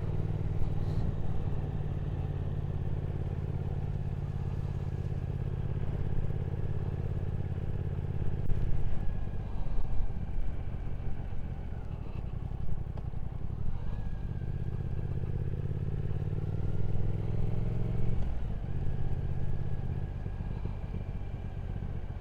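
Triumph Speed Twin 1200's parallel-twin engine running on the move. Its note falls away about nine seconds in and builds again from around fourteen seconds, with a brief break near eighteen seconds.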